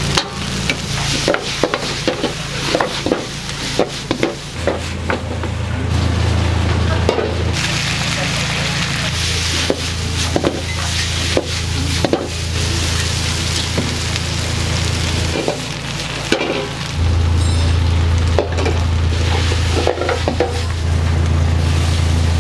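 Pasta sizzling and frying in a metal pan on a commercial stove, with repeated sharp clanks of the pan and utensils as it is stirred and tossed, over a loud low kitchen hum. The clanking is busiest in the first half, and the sizzle swells for several seconds in the middle.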